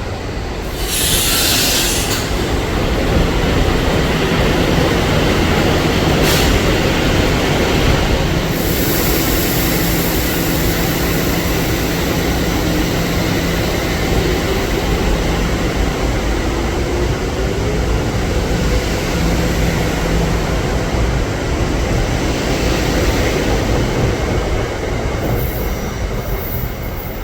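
Philadelphia airport commuter train, an electric multiple unit, running on the rails with a steady rumble. A wheel squeal wavers up and down in pitch for several seconds mid-way, and there is a brief hiss about a second in.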